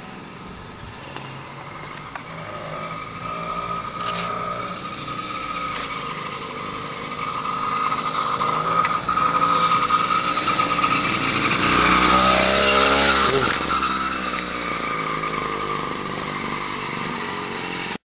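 Small petrol engine of a motorized bicycle kit running with a steady whine. It grows louder, passes close about twelve to thirteen seconds in, then fades, and the sound cuts off suddenly near the end.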